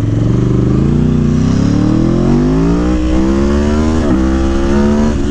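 Aprilia Tuono V4 1100 Factory's V4 engine, fitted with a Gabro Stage 3 airbox and ECU flash, pulling under acceleration: its pitch rises steadily for about four seconds, breaks and drops briefly as it shifts up, and breaks once more near the end before running steady.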